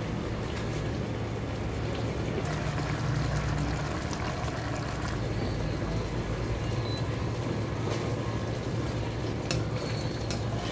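A pan of stew simmering on the stove, a steady bubbling hiss over a constant low hum. A ladle clicks against the metal pan a couple of times near the end.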